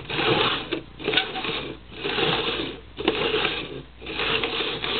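Red plastic cups slid and shuffled across a hardwood floor, scraping in about five strokes roughly a second apart.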